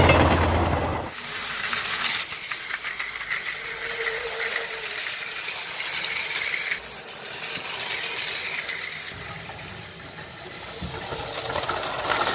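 A loud opening sound cuts off about a second in. Then a battery-powered toy train runs on plastic track, its small motor whining under a rapid clicking rattle of wheels and gears; the whine fades just past halfway.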